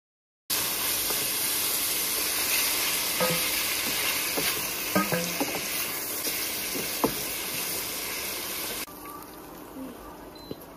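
Pork and tofu sizzling loudly in an oiled wok, stirred with a wooden spatula that knocks and scrapes against the pan now and then. The sizzling drops away abruptly near the end.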